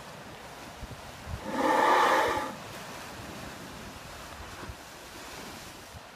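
Ocean surf washing over lava rock, with one loud drawn-out shout of "whoa!" lasting about a second, starting a second and a half in, as a wave bursts into spray over the rocks.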